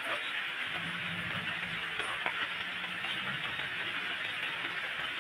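Steady rain falling on clay-tile roofs and a wet paved lane. A faint low hum sounds under it for a couple of seconds near the start.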